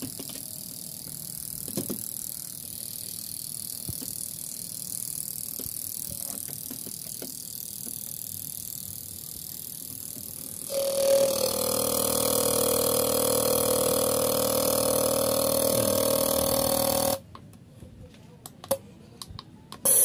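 Light clicks of an automotive fuel injector being fitted to a bench tester, then the injector buzzing steadily for about six seconds as the tester pulses it, cutting off suddenly.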